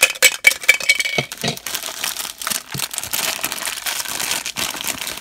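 A few quick metallic clinks and rattles from the tin soda can in about the first second. Then the thin black plastic bag holding the figure crinkles steadily as it is handled and opened.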